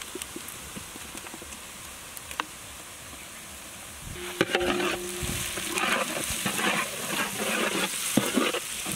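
Chopped onions, green chillies and curry leaves sizzling in hot oil in a large metal pan, with ginger garlic paste just added. About four seconds in, a metal ladle starts stirring, scraping repeatedly against the pan and making the sizzling louder.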